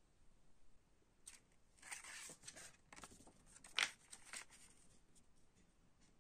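Folded paper cassette insert rustling and crinkling as it is turned over and spread flat, starting about a second in, with one sharp crackle about two-thirds of the way through that is the loudest sound.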